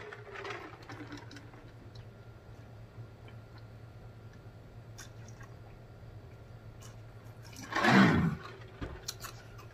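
A man gulping water from a large plastic drinking jug, quietly and steadily for several seconds, then letting out one loud voiced sigh of relief after the last swallow, about eight seconds in. A few light clicks follow near the end.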